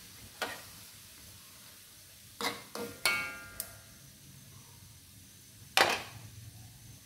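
Metal spatula knocking and scraping against a metal wok during stir-frying: a handful of sharp clanks, one about three seconds in leaving a brief metallic ring, the loudest near the end. Faint sizzling from the pan sits underneath.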